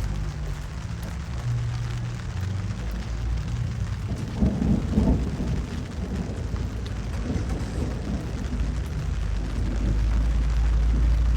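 Low rumble of car engines cruising past, swelling louder about four and a half seconds in as a car goes by or revs, over a steady hiss of rain.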